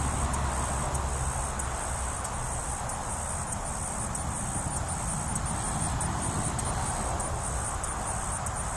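Steady high-pitched insect buzz with a regular pulse, over a low outdoor rumble that is stronger in the first couple of seconds.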